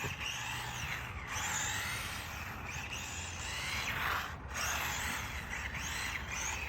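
Losi Mini-B RC buggy's brushed electric motor and gears whining, the pitch sweeping up and down again and again as it speeds up and slows down.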